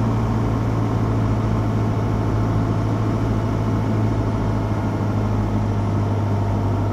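Cessna 150's four-cylinder Continental O-200 engine and propeller droning steadily, heard from inside the cabin on final approach to land: an even, low hum.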